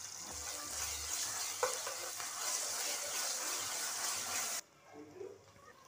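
Onions and green chillies sizzling in hot oil in a steel pan while a metal spoon stirs them, with one sharp clink of the spoon about a second and a half in. The sizzling cuts off abruptly about two-thirds of the way through.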